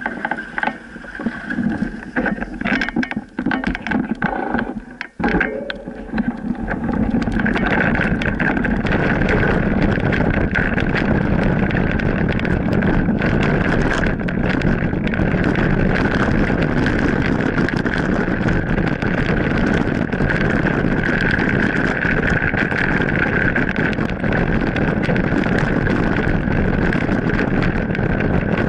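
A pickup truck driving past on a gravel road, the sound uneven and changing over the first seven seconds. From about seven seconds in, a steady rush of wind and gravel noise from a mountain bike riding downhill on a dirt road, heard on a camera carried on the bike or rider.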